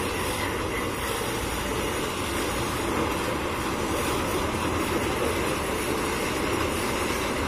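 New steel rails being unloaded from a train of flat wagons: a steady rail-and-wagon running noise, even throughout, with no separate clanks.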